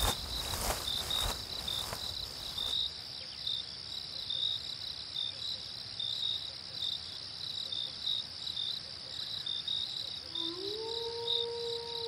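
Crickets chirping steadily in a fast, pulsing high trill. A few seconds of low crackling noise fade out early, and about ten seconds in a wolf howl begins, rising in pitch and then held.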